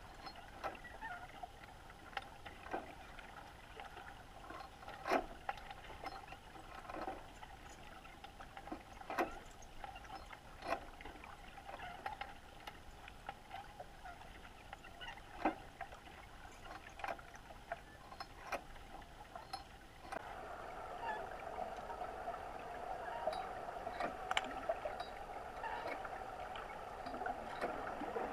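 Underwater ambient sound picked up by a camera submerged in a lake: irregular sharp clicks over a steady hum, the hum growing louder and busier about twenty seconds in.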